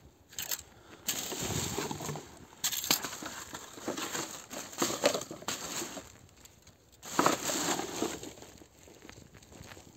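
Black plastic rubbish bag crinkling and rustling as a plastic food tub is stuffed into it by a gloved hand, in irregular handling bursts with a few sharp clicks of plastic. A second burst of crinkling comes about seven seconds in as the bag is lifted.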